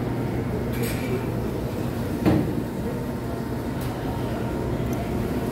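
Steady low rumble of a moving escalator, with a single thump a little over two seconds in.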